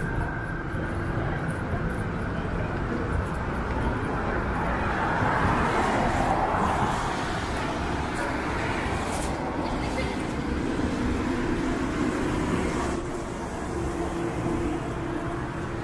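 City street traffic on wet pavement: cars passing with tyre hiss off the wet road, one swelling louder as it goes by about five to seven seconds in.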